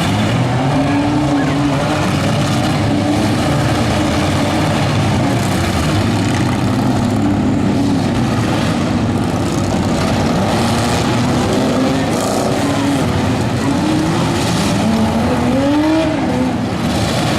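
Several compact-car engines revving and running together in a demolition derby, their pitches rising and falling as they accelerate, with scattered crunches of cars hitting each other.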